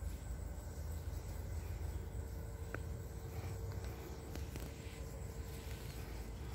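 Faint outdoor ambience on a lawn: a steady low rumble with a faint hum, a few soft clicks, and one brief thin chirp a little before the middle.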